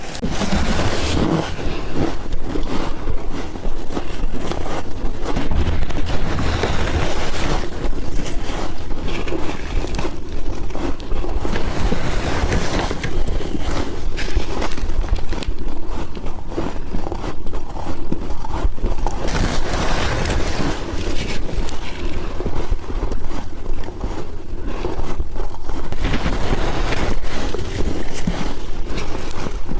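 Close-miked chewing and crunching of soft, powdery ice, a dense, unbroken run of small crunches over a low rumble.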